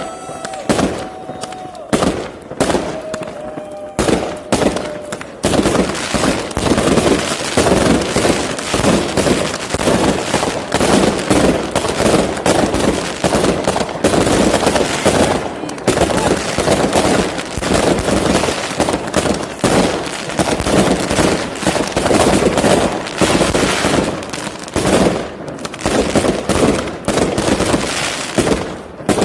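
Professional fireworks display, with aerial shells from 62.5 to 150 mm fired in salvos. It starts with separate launches and bangs, then from about five seconds in becomes a dense, continuous barrage of rapid-fire launches and crackling bursts.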